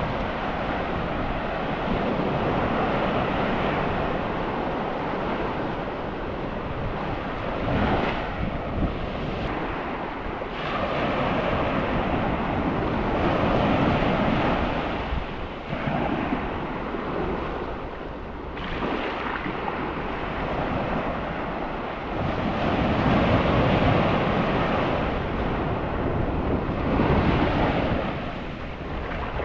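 Sea surf washing onto the beach in swells every few seconds, with wind buffeting the microphone.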